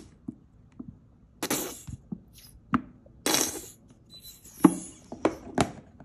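A few short hissing squirts and several sharp clicks as bottles of dishwashing liquid and multi-purpose cleaner are squeezed and sprayed into a plate of water.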